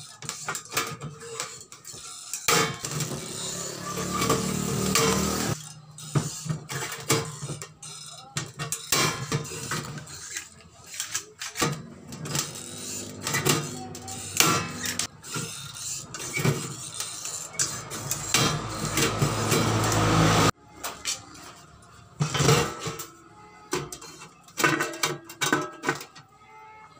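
Hand rivet gun setting pop rivets through a stainless piano hinge into a galvanized sheet-metal box: repeated sharp metallic clicks and snaps, with the thin sheet metal clanking as it is handled. A low hum swells and cuts off abruptly about two-thirds of the way through.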